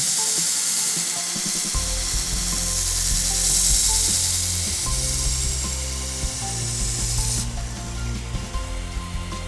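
2-inch variable-speed belt grinder's abrasive belt grinding the edge of a high-carbon steel machete, a steady hiss of belt on steel that cuts off suddenly about three-quarters of the way through.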